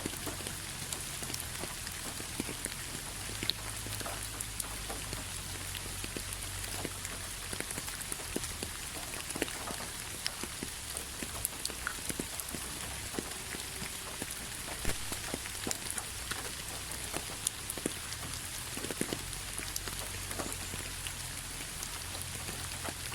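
Steady rainfall with a constant hiss and many individual drops pattering and tapping close by, over a low rumble.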